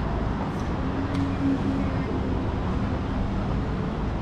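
Road traffic rumbling steadily, with a faint hum held for about two seconds near the start.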